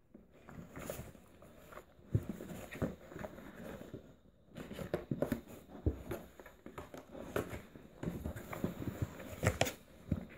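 A Staffordshire Bull Terrier and a Bengal kitten wrestling in a cardboard box: irregular scratching, scuffling and knocks of paws and bodies against the cardboard, with louder bouts about two, five and nine seconds in.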